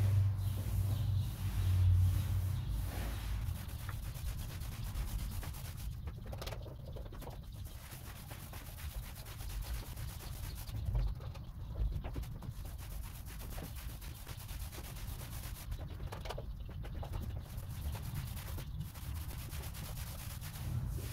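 Paint roller on an extension pole being rolled over a wall, a steady rubbing of the paint-loaded roller cover against the surface.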